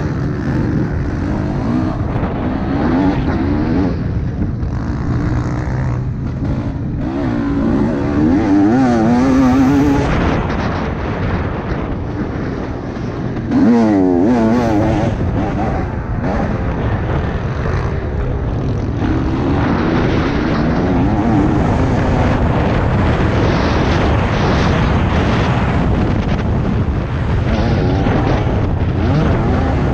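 Single-cylinder 300 cc two-stroke dirt bike engine (TM 300 EN) under riding load, its pitch rising and falling with the throttle. It revs up hard with a sharp rise in pitch about 13 seconds in. Heavy wind noise on the helmet microphone runs underneath.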